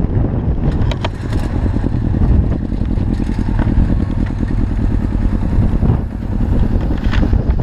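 Suzuki RF600 motorcycle engine in an off-road buggy running steadily at low revs while the buggy moves slowly, heard close from the on-board camera. A few sharp clicks come about a second in and again near the end.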